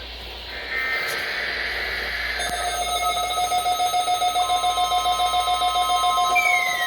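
NOAA Weather Radio test alert signal: buzzing SAME digital header bursts, then about two and a half seconds in a steady, pulsing alarm tone begins, joined by a second tone and a falling tone near the end.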